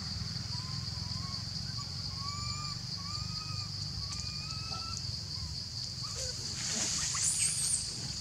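Animal calls: a string of short, pitched calls that rise and fall, repeated about every half second for the first few seconds, over a steady high-pitched drone. Near the end comes a louder, noisier sound with a high warble.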